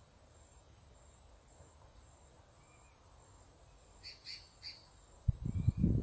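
Outdoor ambience: a steady high insect drone, with three short bird chirps about four seconds in, then loud low rumbling bursts near the end.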